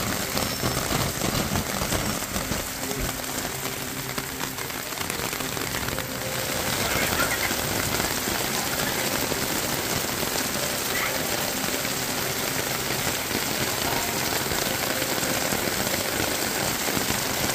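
Heavy rain falling steadily onto a plastic umbrella overhead and onto garden plants, growing a little louder about six seconds in.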